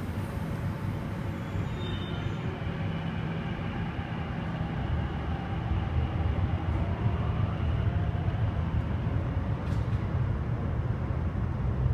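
MTR Kwun Tong Line C-Train pulling out of an underground station and accelerating away into the tunnel: a steady low rumble that grows louder about halfway through, with a faint whine rising in pitch.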